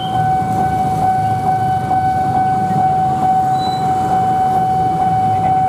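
Railway level-crossing warning alarm sounding a steady electronic tone that pulses faintly about twice a second, over the low rumble of motorcycles and traffic.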